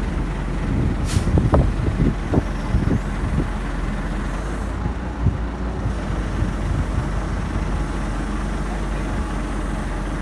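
Crane truck's engine running steadily while its hoist lowers a small generator engine into a fishing boat's hold, with a few short clanks in the first two or three seconds.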